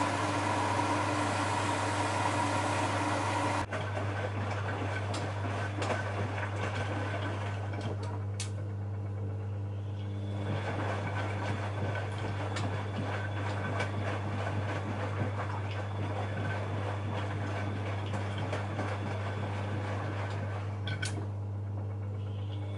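Bosch Maxx WFL 248Y front-loading washing machine running mid-cycle: a steady low hum under a louder whirring that cuts off suddenly about three and a half seconds in, then the hum goes on with scattered clicks and a couple of brief high squeaks.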